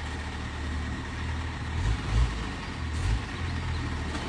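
Heavy truck engine running steadily at idle, with a few low thumps about two and three seconds in.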